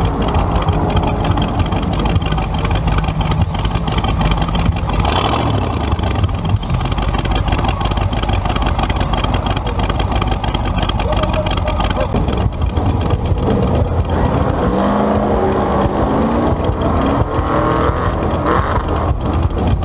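A hot rod's engine with twin carburettors running close up, a loud, steady lumpy rumble as the car creeps forward. About 15 seconds in, the revs rise and fall for a couple of seconds.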